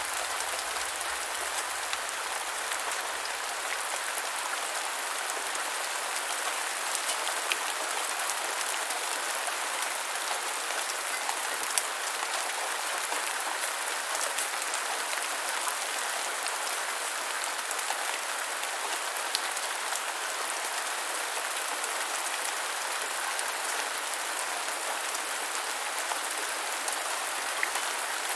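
Steady light rain falling, an even hiss of drops with scattered small ticks of individual drops landing.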